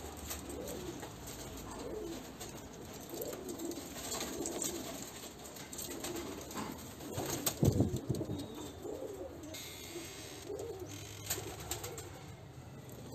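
Domestic fancy pigeons cooing over and over in a loft, with a louder thump about halfway through and a brief rustle a couple of seconds later.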